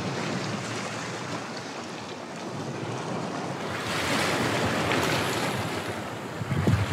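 Sea washing on the shore and wind, with wind buffeting the microphone; the noise grows brighter about four seconds in. A brief low thump comes near the end.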